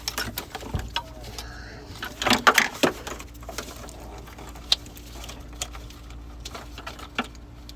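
Wiring harness being worked free from a truck's engine bay: plastic connectors and clips clicking and knocking, with a burst of rattling about two and a half seconds in.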